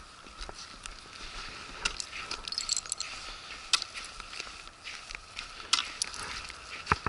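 Footsteps walking over pond ice, with irregular sharp clicks and clinks, like carried fishing gear jangling. A louder thump comes just before the end.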